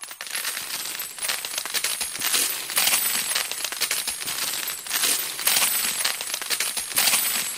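Metal coins pouring and clinking: a dense, continuous jingle of many small metal impacts, with several louder surges.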